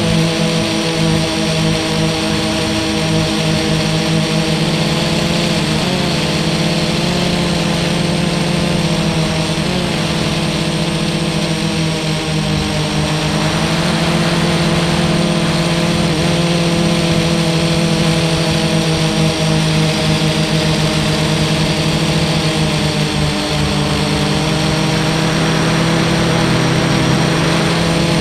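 FPV racing quadcopter's motors and propellers buzzing steadily in flight, the pitch wavering and dipping briefly a few times as the throttle changes.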